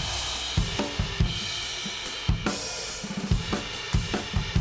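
Background music with a drum kit beat: kick drum, snare and cymbals.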